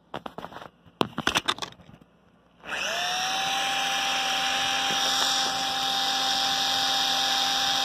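A few clicks and knocks, then about three seconds in the Makita 6093D cordless driver drill's motor starts, rising briefly in pitch, and runs steadily with a whine at no load. It is being run on a freshly charged battery to test how long the battery lasts.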